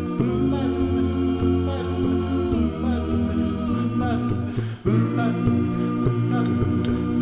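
Male a cappella gospel group singing a wordless close-harmony introduction, with sustained chords over a low bass voice. There is a brief break in the chord about two-thirds of the way through.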